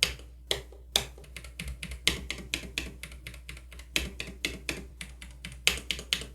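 Keychron K9 Pro low-profile mechanical keyboard with Gateron low-profile brown switches being typed on: a few keystrokes about half a second apart, then a quick run of typing from about a second in. The stabilized keys give a clacking 'clap', which the owner suspects comes from the stabilizers touching the bottom of the case.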